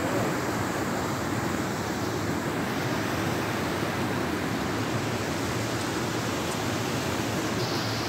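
Steady rush of a stream running over rocks and stones.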